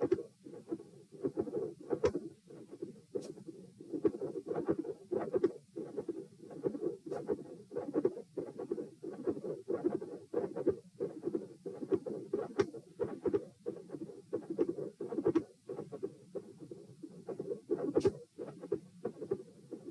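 Human heart sounds heard through a stethoscope, the chest lying supine after leg exercise: a steady beat at about 80 to 90 a minute with high-pitched clicks among the beats.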